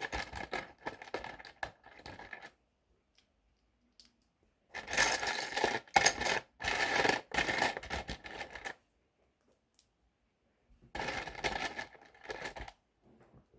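Small plastic LEGO pieces clattering and clicking as they are handled and sorted, in three spells of rapid rattling with quiet gaps between.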